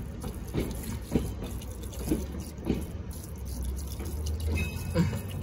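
Water spraying from the hand-held nozzle of a Nemo Helio Pressure Shower, a foot-pumped camp shower, splashing onto a child's bare feet and wet pavement, with a few brief splashes.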